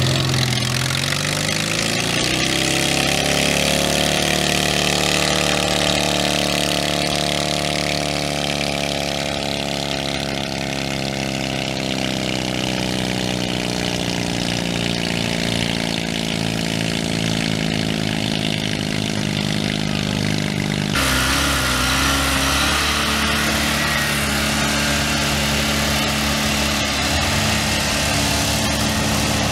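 Small garden tractor engine revving up over the first couple of seconds and then running hard at high, steady speed under a pulling load, its pitch sagging slightly midway. About two-thirds of the way through, the sound switches abruptly to another steady engine sound.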